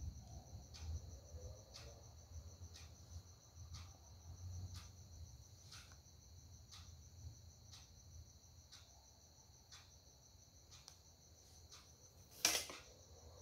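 Faint crickets trilling steadily, with soft ticks roughly once a second and a low hum underneath. A louder click comes near the end.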